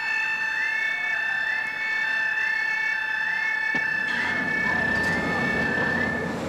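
A steady high tone with a short rising chirp repeated about once a second. A knock comes a little under four seconds in, then a low rumble, and the tone stops near the end.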